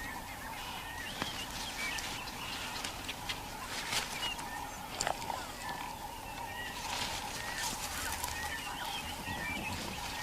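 Bush ambience: birds chirping in short repeated calls over a steady faint hum, with scattered cracks and rustles of foliage as elephants feed.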